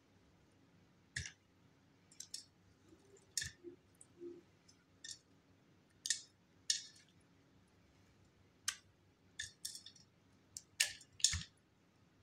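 Thin, dry flakes of multani mitti (Fuller's earth) snapping and crackling as fingers peel the layers apart: a dozen or more short, crisp clicks at irregular intervals.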